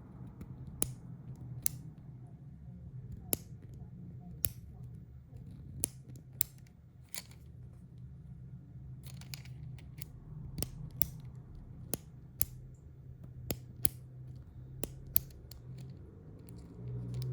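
A 3D-printed PLA clicky pen being clicked over and over, its plastic push button and rotating cam snapping in and out. The sharp clicks come at uneven spacing, about one a second, over a low steady hum.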